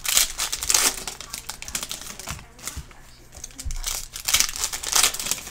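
Foil wrapper of a Donruss Optic basketball card pack crinkling as it is torn open and pulled apart by hand, in two spells of rustling: at the start and again about four seconds in.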